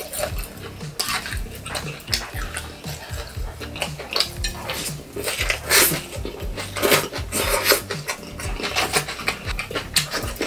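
Metal tongs clinking and scraping against a small metal pan while seasoned scallions are picked out, in a run of irregular sharp clicks.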